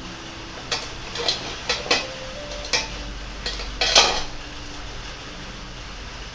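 Several light clinks and taps of small glass or ceramic paint pots and a brush being handled, about eight in a row with the loudest near four seconds in, then only a low steady hum.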